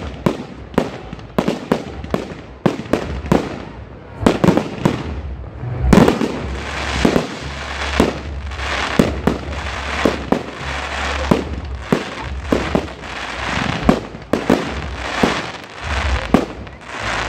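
Fireworks display: a rapid, irregular run of aerial shell bursts, sharp bangs several a second. From about six seconds in a dense crackle fills the gaps between the bangs.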